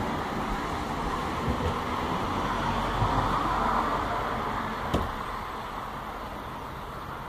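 Steady rushing hiss of a passing vehicle, swelling to a peak about halfway through and then fading. A single sharp click sounds about five seconds in.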